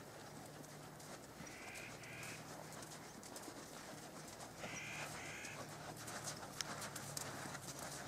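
Faint hoofbeats of a horse moving on arena sand. Twice, an animal gives a short two-note call. The hoofbeats grow more distinct near the end.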